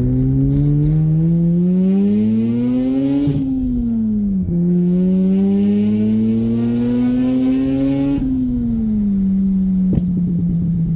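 Mazda RX-8's rotary engine accelerating through the gears. The revs climb, drop at a shift about three seconds in, climb again, fall back near eight seconds, then hold steady at a lower speed. There is a short click about ten seconds in.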